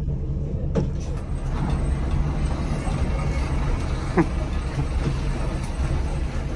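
Hino R260 diesel bus under way, heard from the passenger cabin: a steady low engine and road rumble, with two short knocks or rattles, one about a second in and one past the middle.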